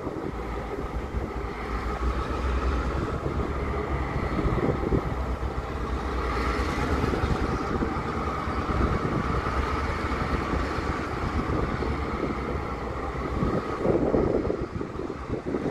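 Norfolk Southern diesel freight locomotive running as it slowly hauls a short string of freight cars along the track, a steady engine drone. Wind buffets the microphone near the end.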